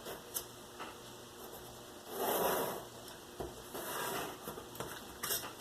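Hands working on a cardboard model: two short scraping swipes, about two and four seconds in, with small clicks and taps between them.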